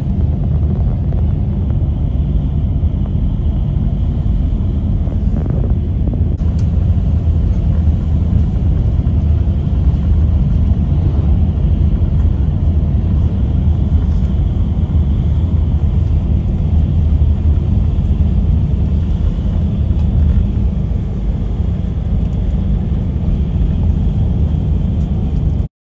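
Steady low rumble of engine and road noise heard from inside a moving tour vehicle travelling at road speed. It cuts off abruptly near the end.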